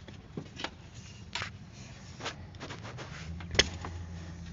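Spark plug wire boots being worked loose by hand on a Subaru boxer engine: scattered light clicks and rubbing, with one sharp click about three and a half seconds in. A low hum comes in just before that click.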